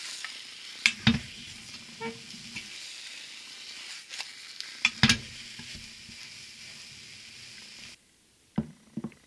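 Egg mixture sizzling in a rectangular tamagoyaki pan on a gas burner, with sharp knocks about a second in and again about five seconds in as the pan is worked. The sizzle cuts off about eight seconds in, and two light knocks follow near the end.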